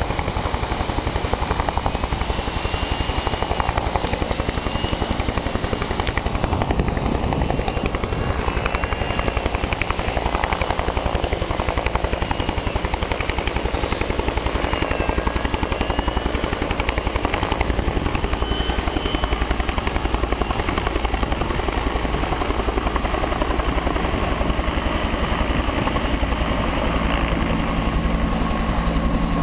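Helicopter flying, its steady rotor and engine sound growing stronger near the end as it comes closer, over the constant rush of river rapids.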